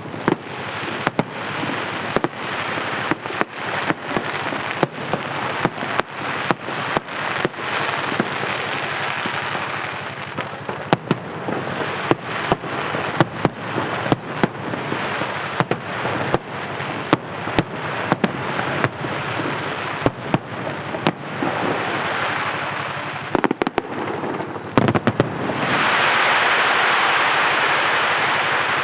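Aerial fireworks bursting in quick succession, often more than one bang a second, with stretches of hissing crackle. The crackle is loudest near the end and then stops.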